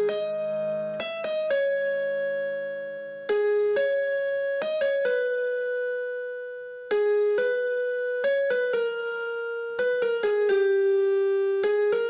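Background music: a slow melody of single notes, each struck sharply and then fading.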